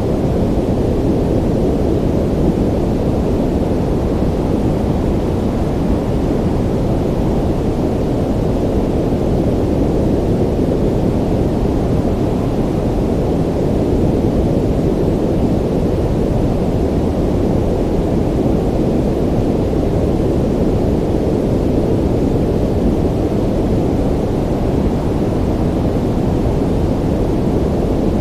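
Ocean ambience: a steady, low, muffled rumble of surf with no distinct wave crashes.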